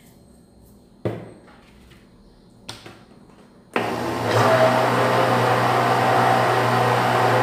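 Philips Walita countertop blender switched on about halfway through and running steadily, mixing liquid cheese-bread batter. Before it starts, a sharp knock about a second in and a smaller click.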